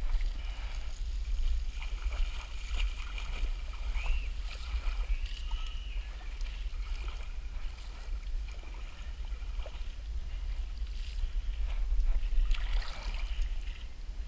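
Low wind rumble on the microphone together with the swish and slosh of pond water as a seine net is hauled through it. The water noise grows louder about twelve seconds in.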